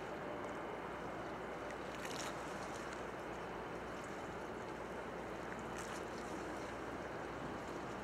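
Steady, faint drone of a ship's engine moving in port, mixed with the rush of water. Two brief, faint high clicks come about two and six seconds in.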